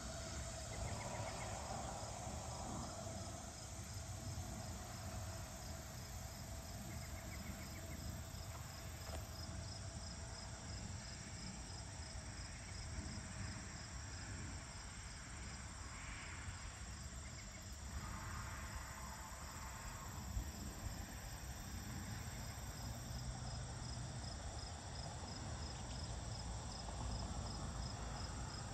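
Crickets chirping in a steady, fast, even pulse, with a low steady rumble underneath.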